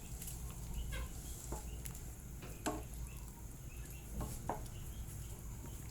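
A spoon stirring in a cooking pot of broth, giving a handful of short, light knocks and scrapes against the pot over a low steady hum, as stock cubes are worked in to dissolve.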